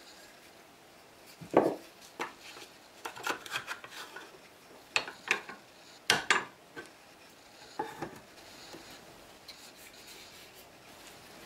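Aluminium dowelling jig and a pine workpiece being handled and set in a metal bench vise: scattered clunks, clicks and rubbing, loudest about one and a half seconds in and again about six seconds in, then dying down to faint handling.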